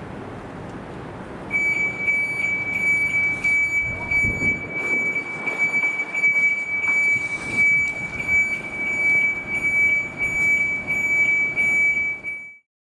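Electronic alarm sounding a single steady high tone that pulses about twice a second, over background road noise. It starts about a second and a half in and cuts off abruptly near the end.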